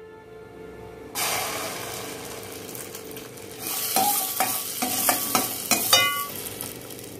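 Whole spices, including cinnamon sticks and cumin, sizzling as they fry in a stainless steel pan; the sizzle swells about a second in. From about four seconds in, a metal spoon scrapes and clinks against the pan as the spices are stirred.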